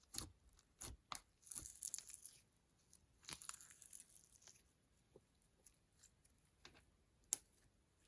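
Close-up handling noise: a few sharp clicks, then two stretches of crinkly, crackling noise starting about one and a half and three seconds in, and one sharp click near the end.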